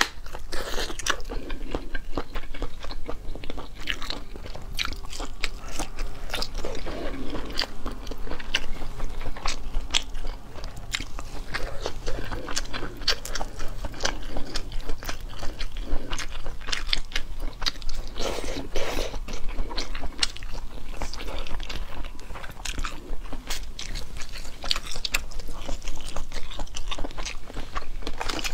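Close-miked mouth sounds of a person biting and chewing soft crab-leg seafood, with many small wet clicks following one another.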